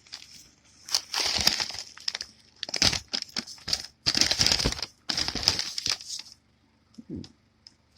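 Packaging being handled and torn open, crumpling and crinkling in about four bursts, each lasting under a second to a second.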